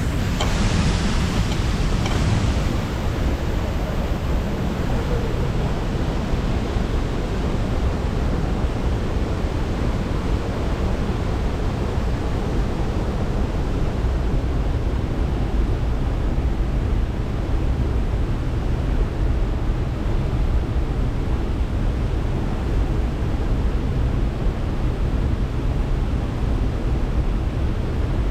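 Steady rushing roar of the waterfall and river at Sol Duc Falls, a little brighter and hissier in the first two seconds.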